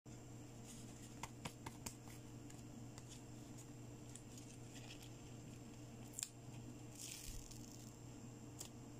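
Small ticks and crinkles of a paper sheet of adhesive bandage stickers being handled, then a short rasp near the end as a bandage sticker is peeled off its backing.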